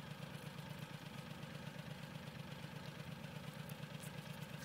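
A motor engine idling steadily with a low, even, rapid pulse.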